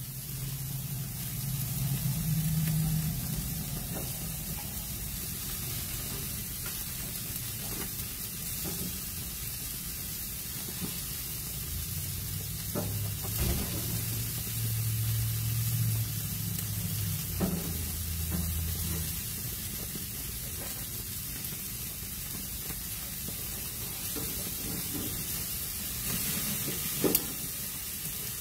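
Meat sizzling on a hot grill griddle and grate, a steady hiss, with a few sharp clicks of metal tongs. A low hum swells and fades twice.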